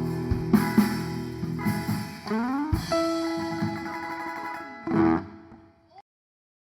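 Guitar playing the last notes of a song, with a note sliding upward about two seconds in and a held note after it; the music cuts off about six seconds in.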